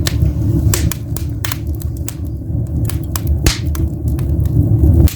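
Wood fire crackling in an open fireplace: irregular sharp pops and snaps over a steady low rumble.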